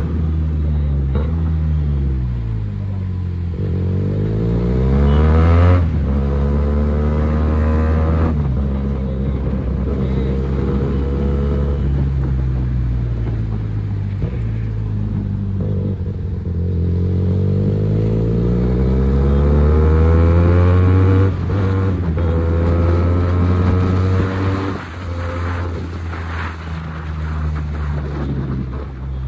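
QJ Motor SRK 400 motorcycle's engine and exhaust under riding, the revs climbing and falling over and over as the throttle is opened and closed and the gears change. The loudest pulls are about six seconds in and near two-thirds of the way through, each cut off suddenly as the throttle shuts.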